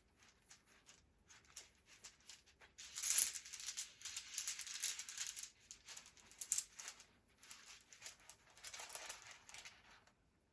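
A handful of runes rattling and clattering as they are shaken and cast, in several spells of dense clatter with scattered light clicks between.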